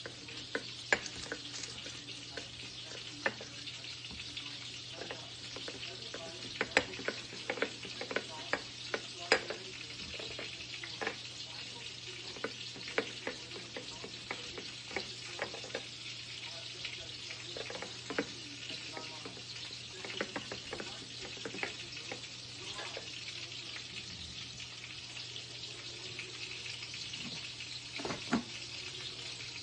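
Chicken pieces frying in a pan, a steady sizzle, with irregular clicks and knocks of lemon halves being twisted and pressed on a glass citrus reamer.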